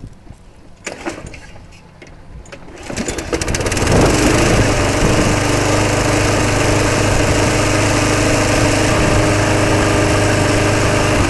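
Briggs & Stratton Quantum single-cylinder push-mower engine cold-started by pull cord after sitting about six months. It catches on the second pull about three seconds in, rises quickly and then runs steadily.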